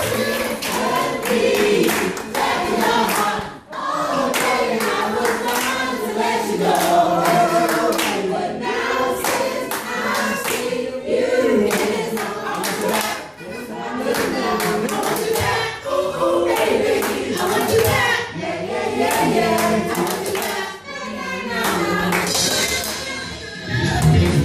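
Several voices singing together, choir-like, with hands clapping in a steady rhythm along with the song.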